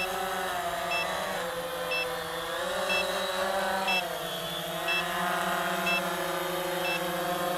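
Quanum Nova quadcopter's motors and propellers buzzing in flight, the pitch of the whine wandering up and down as the throttle changes. A short electronic beep repeats about once a second.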